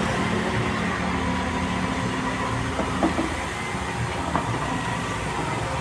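Heavy diesel machinery running steadily, a constant engine drone with a steady whine over it. A few light knocks come about three seconds in and again a little over four seconds in.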